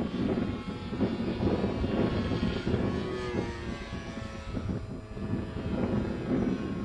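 Single-engine propeller fighter plane flying overhead, a steady engine drone whose pitch slides down around the middle as it passes.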